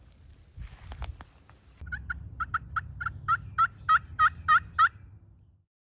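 A run of about a dozen wild turkey yelps, about three a second, growing louder, after a brief rustle of movement.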